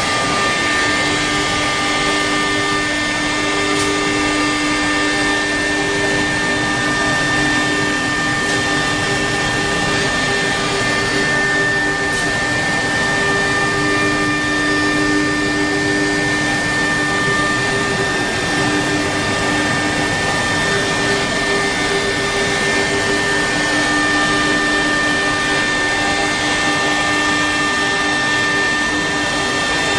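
CNC router spindle mounted on a lathe, running and cutting during 3D engraving: a steady machine whine with lower tones that waver as it cuts.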